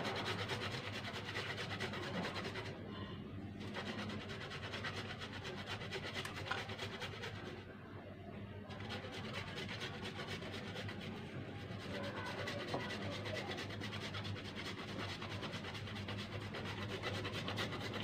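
Fresh ginger root grated on a flat metal grater resting on a wooden cutting board: a steady rasping scrape of rapid strokes, with short pauses about three and eight seconds in.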